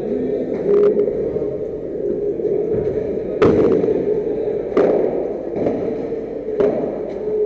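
Padel rally: ball struck by paddles and bouncing, several sharp knocks about a second or more apart, the loudest about three and a half seconds in, over a steady low hum.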